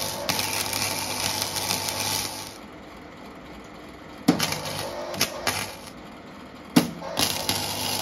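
Electric arc welder tack-welding small square steel tube spacers: the arc crackles in three short runs, the first about two and a half seconds long, then two shorter ones after a pause, the later two each struck with a sharp crack.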